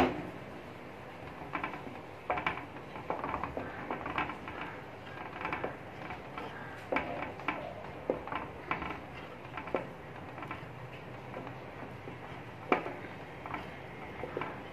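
Wooden spatula scraping and knocking against a metal pot as thickening milk with freshly added milk powder is stirred without pause to keep lumps from forming. Irregular scrapes and taps run throughout, with a sharp knock right at the start.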